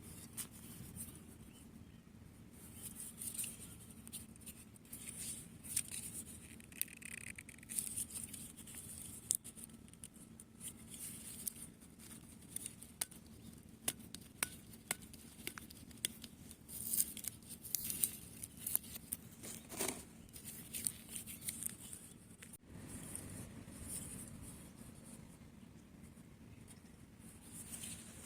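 Bicycle giving off irregular clicks and short high squeaks as it moves: the abnormal noise of a dry, unlubricated bicycle at the chain, pedals or wheel-nut joints.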